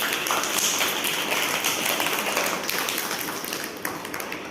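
A group of children clapping their hands together, a dense patter that thins out and dies away over the last second or so.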